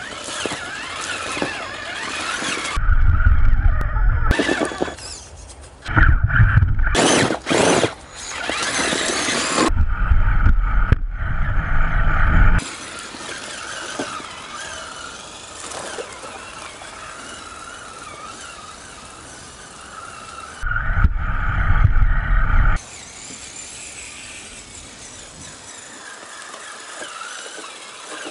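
Traxxas Summit RC truck's electric drive whining high as it crawls over creek rocks, the pitch wavering with the throttle. Four loud low rumbling stretches, each a second or two long, break in a few seconds apart.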